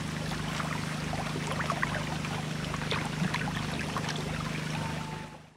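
Dozens of catfish thrashing and splashing in shallow muddy water, many small quick splashes, over a steady low motor hum. It fades out near the end.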